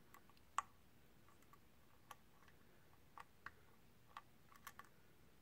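Faint, irregular clicks from a thin lock pick working the pin stack of an Iseo 5-pin half-euro cylinder, a very clicky lock. There are about eight light clicks, the sharpest about half a second in.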